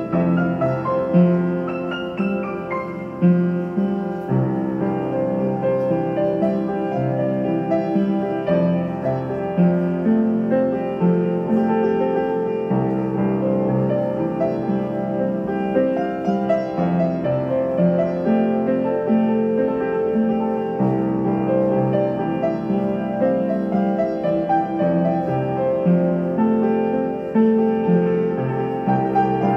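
Piano music playing steadily: a continuous flowing run of notes and chords.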